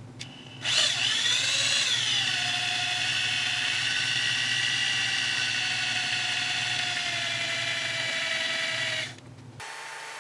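Electric power drill running: its motor whine starts about half a second in, swoops up and settles in pitch, then holds steady for about seven seconds before cutting off.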